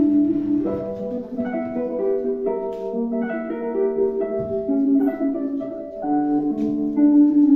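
Instrumental background music: a slow melody of held notes over a steady accompaniment.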